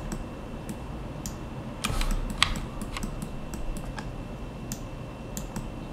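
Computer keyboard keystrokes: scattered single taps with a short cluster about two seconds in, over steady background noise.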